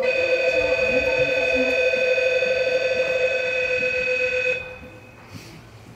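Electronic station departure bell rings steadily with a buzzing, many-pitched tone for about four and a half seconds, then cuts off. It signals that the train's doors are about to close.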